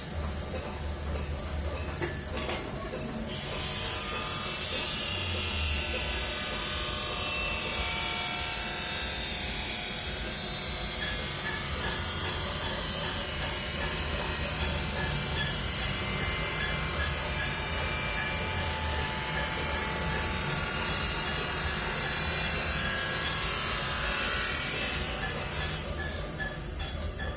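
Welding arc sizzling steadily on a custom exhaust muffler canister, starting about three seconds in and stopping a couple of seconds before the end, with a low hum underneath.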